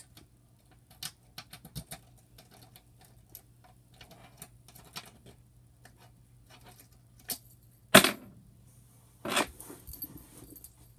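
A key jingling on its ring and small metallic clicks as it is worked in the lock of a metal box, with a sharp clack about eight seconds in and more knocks about a second later.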